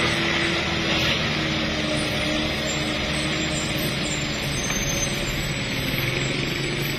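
Motor vehicle engines running steadily on a wet road: a box truck pulling away while motorcycles approach.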